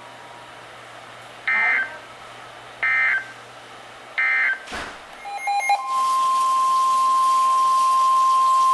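Emergency Alert System tones: three short end-of-message data bursts of warbling two-pitch digital tones, about a second and a half apart, then after a click a steady single-pitch warning alarm tone of about 1050 Hz over static hiss, starting about six seconds in, announcing the next alert.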